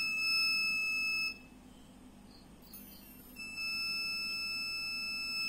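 Homemade BC547 transistor alarm circuit sounding a steady, high-pitched electronic tone through its small speaker, a sign that the circuit is wired correctly. The tone cuts out about a second in and comes back about two seconds later.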